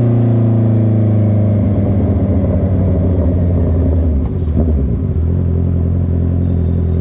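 Honda CB650R inline-four through a loud exhaust, its pitch falling steadily as the bike slows off the throttle, then running unevenly at low revs before settling into a steady idle about five seconds in.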